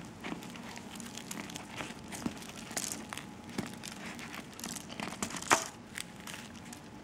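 Freshly baked, crisp-crusted sesame külçe bread rolls being pulled apart and torn open by hand. The crust crackles in many small snaps, with the baking paper beneath crinkling, and the loudest crack comes about five and a half seconds in.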